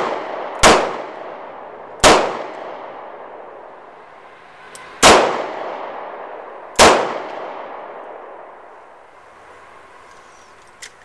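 Four shots from a .357 Magnum snub-nose revolver, fired at uneven intervals of one and a half to three seconds. Each is a sharp crack with a long echoing tail. A light click follows near the end.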